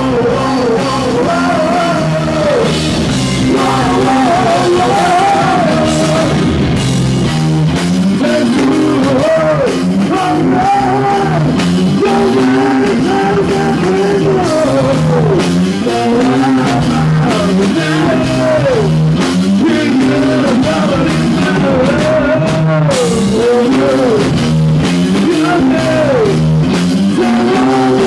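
Live rock band playing loud: a male voice singing over bass guitar and a drum kit.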